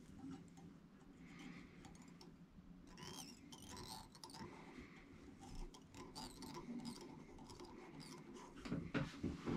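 Faint rustling and small ticks of hands tying material onto a jig: fly-tying thread wrapped from a bobbin around the hook shank of a jig held in a vise. The ticks come more often from about three seconds in.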